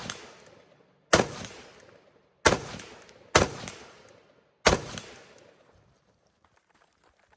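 Four rifle shots fired one at a time, about a second apart and unevenly spaced, each followed by a trailing echo. Faint small clicks follow near the end.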